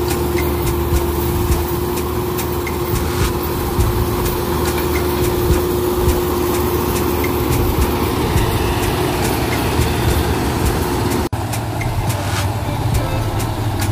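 Rice combine harvester running steadily as it works, its engine and machinery giving a continuous drone with a steady whine that fades away over the first half. The sound cuts out briefly about eleven seconds in.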